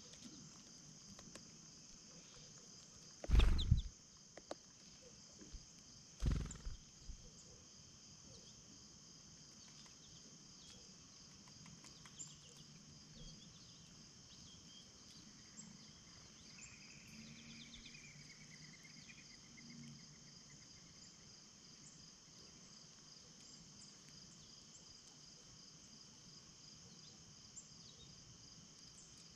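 Steady, pulsing high-pitched chorus of insects such as crickets, with two loud thumps about three and six seconds in and a faint bird twitter near the middle.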